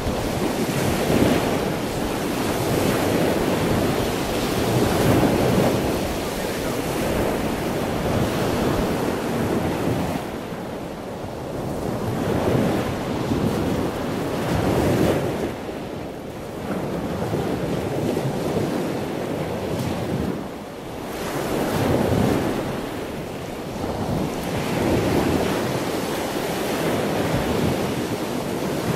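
Strong wind over a ship's open deck at sea, buffeting the microphone in gusts that swell and ease every few seconds, with a few brief lulls.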